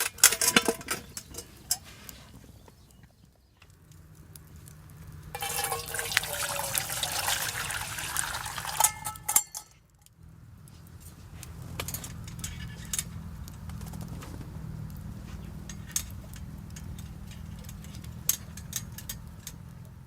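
Liquid being poured for about four seconds near the middle, between light clicks and knocks of camp cookware, over a low steady hum.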